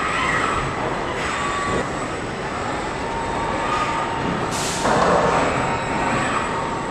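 Steady machinery noise of an automated car body shop with industrial robot arms at work. A short hiss comes about four and a half seconds in, followed by a louder surge of noise.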